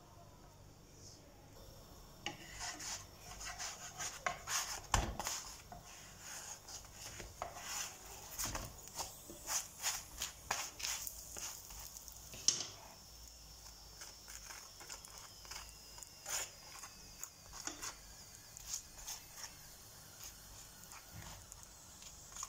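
A metal fork rubbing and scraping as butter is spread over gözleme frying in a nonstick pan. It makes a quick run of clicks and scrapes for about ten seconds, then only scattered light ticks over a faint steady hiss.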